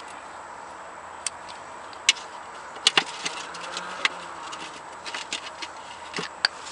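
Irregular light clicks and taps of transmission-pan bolts and hand tools being handled as the pan bolts are started and snugged lightly against the new gasket, over a steady low hiss.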